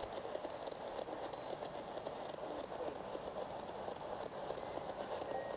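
Ghost box (spirit box) radio sweeping through stations: a steady hiss of static broken by rapid clicks as it jumps from channel to channel.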